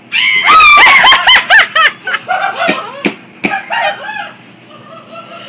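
A person shrieking in fright: a sudden, very loud run of high-pitched shrieks that breaks into shorter, weaker cries after about two seconds.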